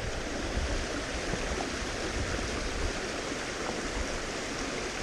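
Mountain stream rushing steadily over rocks and small cascades.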